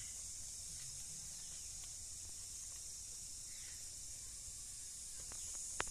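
Steady high-pitched hiss over faint outdoor background noise, with one sharp click near the end.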